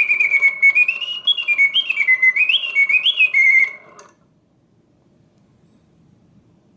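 Mechanical singing bird automaton's bellows-driven whistle singing a canary song, its pitch gliding up and down in warbling steps, then stopping abruptly about four seconds in as the mechanism goes into its pause.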